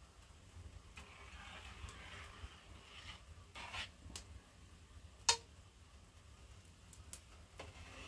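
Metal skimmer scraping and tapping against a large aluminium pan and a small steel cup as foam is skimmed off boiling grape must. The clicks are scattered, with one sharp metallic clink about five seconds in.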